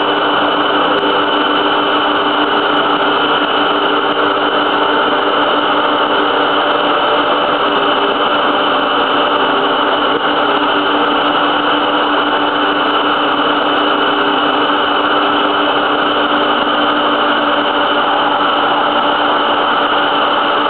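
Formula One car's Renault V8 engine running steadily at idle, picked up through a small camera mounted under the car's nose as a loud, unchanging noise with a constant hum.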